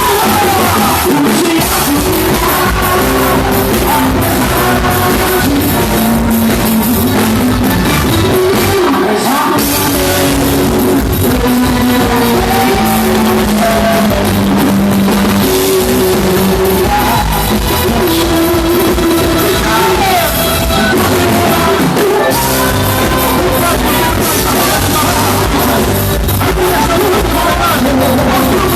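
Loud music with singing, with no break.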